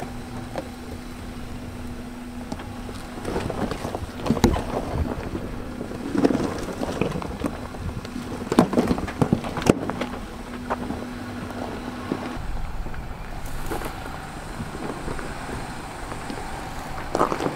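Jeep Gladiator crawling down a steep slope of loose rock: the engine running at low speed, tires crunching over stones, with several sharp knocks along the way. Wind on the microphone.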